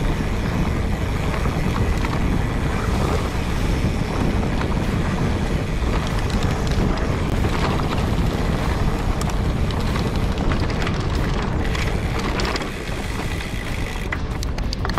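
Mountain bike ridden fast on a trail, with wind buffeting the microphone over tyre rumble and scattered clicks and rattles from the bike, the rattles more frequent near the end.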